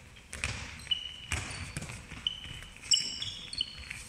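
Handballs bouncing several times on a wooden sports-hall floor, mixed with short high squeaks of sneakers as players run and cut.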